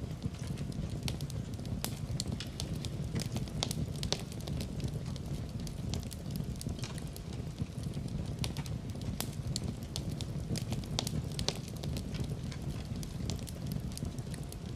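Wood fire burning in a fireplace: a steady low rumble with frequent irregular crackles and pops.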